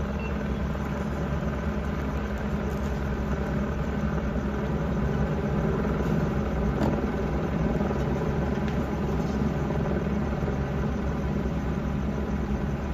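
An engine idling steadily: a low rumble with a constant hum.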